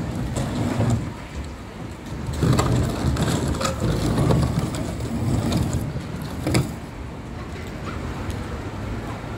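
Plastic barrier being pushed across gravel, scraping and crunching in uneven stretches, with a sharp knock about six and a half seconds in.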